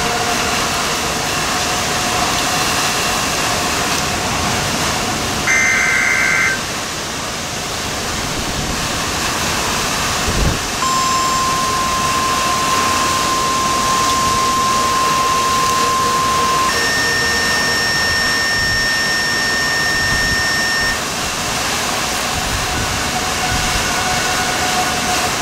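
Steady rushing storm wind of a weak EF-1 tornado striking a house. Over it come electronic tones: a short buzzing burst about six seconds in, then a long steady beep, then a higher steady tone.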